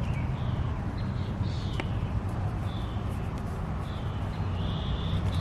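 Short high bird chirps, several in a row, over a steady low rumble, with a single sharp click about two seconds in.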